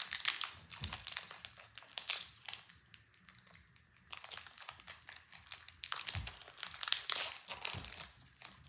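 Foil wrapper of a Pokémon 151 booster pack crinkling as it is opened and handled. Two spells of crackling come with a quieter gap in the middle.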